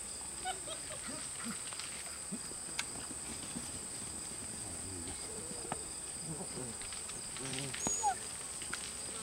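Seven-week-old German Shepherd puppies giving scattered short yips and whines as they chase a flirt-pole lure, over a steady high drone of insects.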